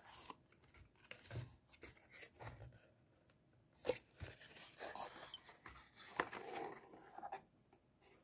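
Faint rustling and scraping of a cardboard perfume box being opened by hand and the bottle slid out. A few light taps among it, sharpest about four seconds in and again about six seconds in.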